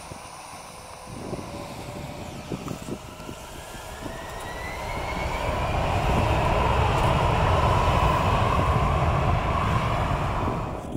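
Bombardier Global 5000 business jet taxiing, its two Rolls-Royce BR710 turbofans giving a steady rumble and hiss that grows louder about halfway through, with a faint rising whine.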